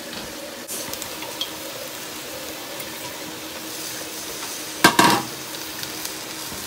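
Chicken and mixed vegetables sizzling steadily in a frying pan. About five seconds in, a loud double clatter against the pan.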